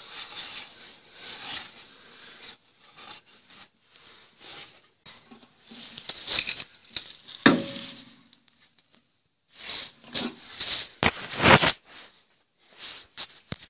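Close-up handling noise of hands working on engine parts: scraping and rubbing with scattered clicks. One sharp metallic clink about seven and a half seconds in rings briefly, and another burst of scrapes and knocks follows from about ten to twelve seconds in.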